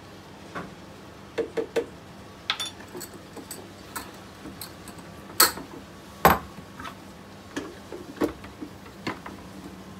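Scattered light clicks and knocks of a spoon, glass jars and a plastic blender jar being handled, with two sharper knocks a little past the middle. Toward the end the blender's plastic lid is fitted onto the jar.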